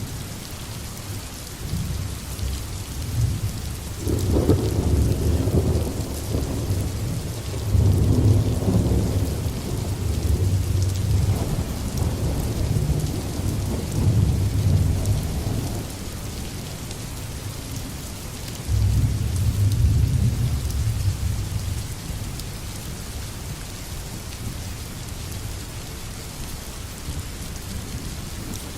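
Thunderstorm: steady rain with low rolls of thunder that swell and fade several times, one starting suddenly about two-thirds in, then only the rain for the last quarter.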